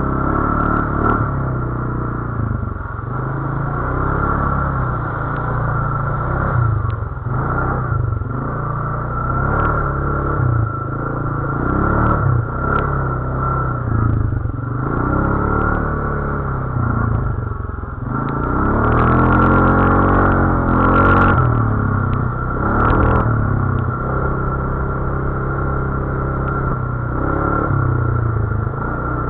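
ATV engine running under load off-road, its pitch rising and falling as the throttle is worked, with a longer, harder rev about two-thirds of the way through. Occasional short clatters come through over the engine.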